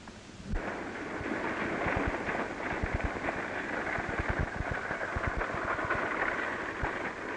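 Two-horse buggy rolling along a dirt road: a steady rattle of wheels and harness over irregular thudding hoofbeats, starting abruptly about half a second in.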